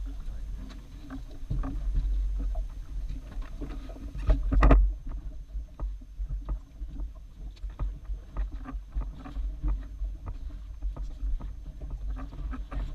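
Water slapping against the hull of a small fishing boat rocking at sea, with a steady low rumble and many irregular knocks. One louder thump comes about four and a half seconds in.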